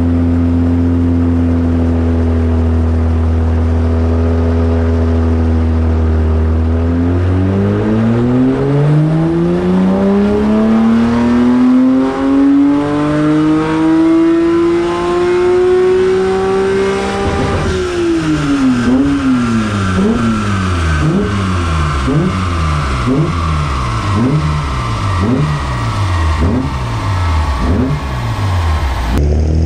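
BMW S54 3.2-litre straight-six engine being run on a rolling-road dyno. It holds steady revs for several seconds, then climbs smoothly in pitch for about ten seconds in a power run. The revs then fall back, wavering down and up about once a second.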